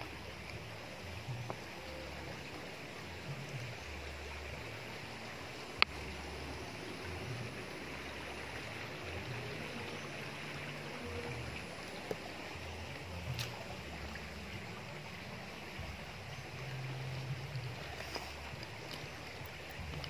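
Shallow creek water running over rocks, a steady hiss, with an uneven low rumble on the microphone and one sharp click about six seconds in.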